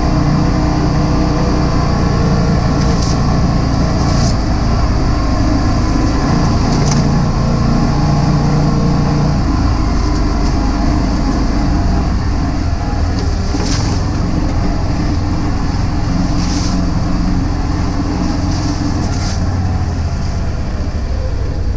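Can-Am Defender HD10 side-by-side's 976 cc V-twin engine running steadily under way, heard from inside the open cab, with drivetrain and tyre noise. The engine note shifts about halfway through. Several short swishes come through over it.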